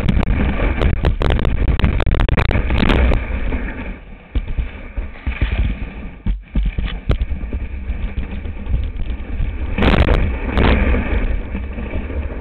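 Rumble and buffeting on a small camera's microphone sitting low by a ski in the snow, with frequent knocks and scrapes as the ski and camera shift. It eases off from about four seconds in and flares up again with two loud noisy flurries near ten seconds.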